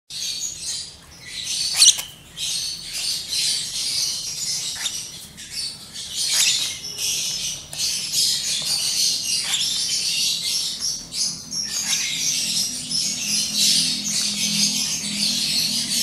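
Lovebird chicks about a month old chirping continuously in a rapid, high-pitched chatter, with one sharper, louder sound about two seconds in.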